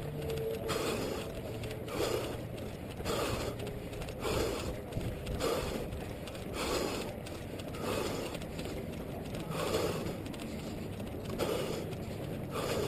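A runner breathing hard through a head-mounted GoPro Hero 2, one loud exhale about every second or so in a steady rhythm.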